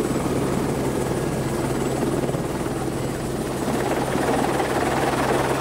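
Helicopter engine and rotor running steadily while still on the ground before takeoff, heard from inside the cabin: a constant low hum under a dense rushing noise, growing a little louder near the end.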